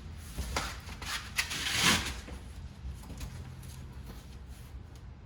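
A few knocks and scrapes of car interior trim being handled and pulled loose, the loudest about two seconds in, over a steady low hum.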